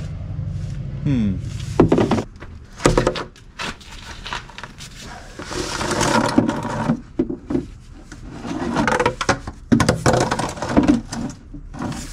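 A plastic oil drain pan and a plastic milk crate being handled and set in place under a truck: a series of knocks and clatters, with a longer scraping stretch about six seconds in.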